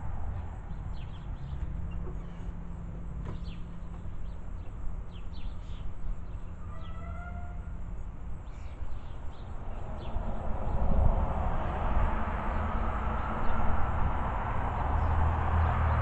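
A steady low rumble with scattered short bird chirps, and a brief call in a few stacked rising tones about seven seconds in. From about ten seconds in, a broad rush of noise swells up and stays.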